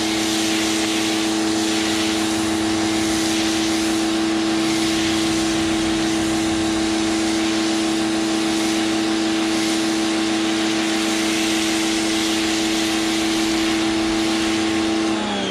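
Greenworks electric pressure washer running under load with a steady hum, while the foam cannon sprays with a constant hiss. The hum cuts off and falls in pitch at the very end as the trigger is released.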